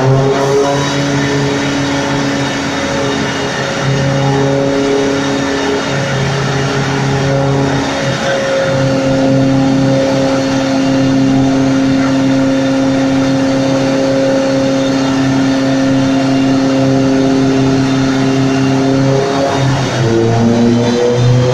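Turbocharged Volkswagen Golf Mk5 engine, fitted with a Garrett GTX2867 turbo at 1.6 bar boost, running on a chassis dyno. It holds a steady engine speed for most of the stretch, and the revs climb again near the end.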